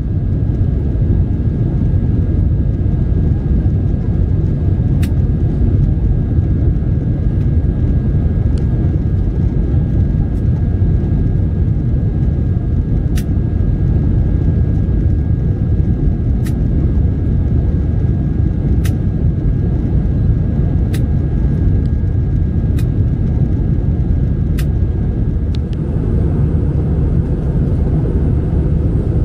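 Airbus A320 passenger-cabin noise in flight: the steady low roar of the jet engines and the airflow over the fuselage, with a faint steady high whine. A few faint, sharp clicks are scattered through it.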